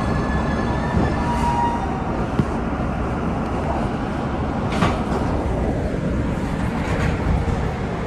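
MBTA Red Line subway train slowing along a station platform, heard from inside the car: a steady low rumble with a whine that fades early on and a tone falling in pitch about six seconds in. Two short, sharp sounds come near five and seven seconds.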